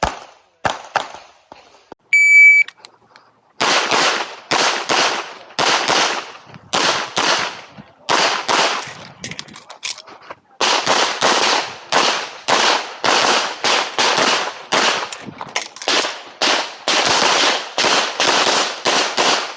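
An electronic shot-timer start beep sounds about two seconds in. Rapid handgun fire follows: dozens of sharp shots, often close together, with a short break near the middle. A few shots are also heard in the first second.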